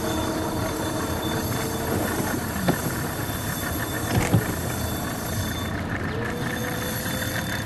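Small outboard motor running steadily at trolling speed, with wind and water noise around the boat and a couple of brief knocks.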